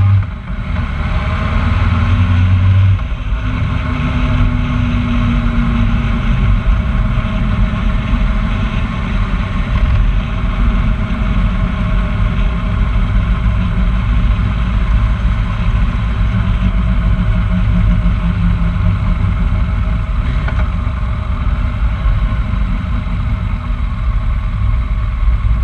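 A road vehicle's engine running while it is driven along at a steady pace, with a strong low rumble of wind and road noise. The loudness dips briefly just after the start, as if the throttle were lifted.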